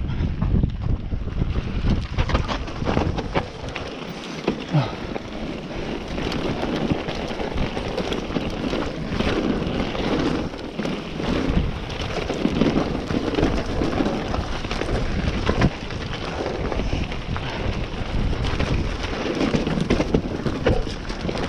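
Mountain bike descending a rough trail at speed: wind rushing over the microphone and tyres running over the ground, with frequent clicks and knocks as the bike rattles over the bumps.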